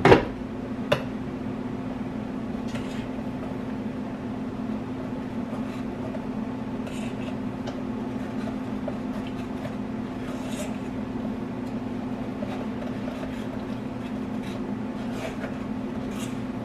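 A plastic blender jug knocked down onto its base a couple of times at the start, then a metal spoon scraping and tapping lightly in a strainer as blended beans are pressed through into a bowl, over a steady low appliance hum.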